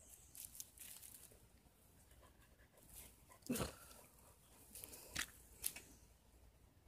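A few faint crunches and rustles of dry leaves as a dog noses and steps about in them, the loudest about three and a half seconds in and two more near five seconds.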